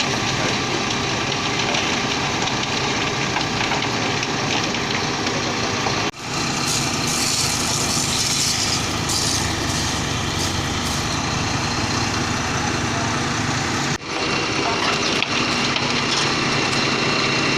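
Diesel engine of a concrete mixer truck running steadily at a low, even speed, with a brief hiss from about seven to nine seconds in. The sound breaks off for a moment twice, about six and fourteen seconds in.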